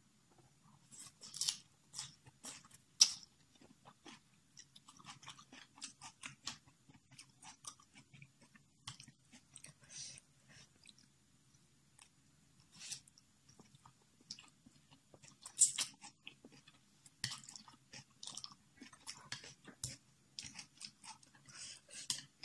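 A person eating instant noodles with vegetables close to the microphone: irregular chewing, biting and mouth clicks, over a faint steady low hum.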